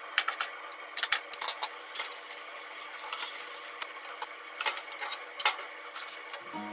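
Cookware clatter: a ladle and spatula knocking and scraping against a frying pan and its lid in a string of sharp clicks as simmering chicken and egg are scooped out, over a steady simmering hiss.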